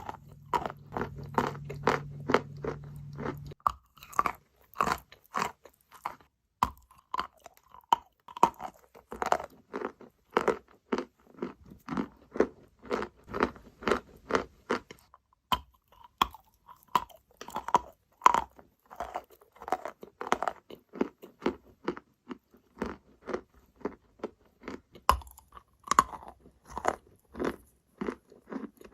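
Wet, sandy, grainy material crunching over and over, in short crisp crunches about two to three a second. A low steady hum sits under the first few seconds and stops abruptly.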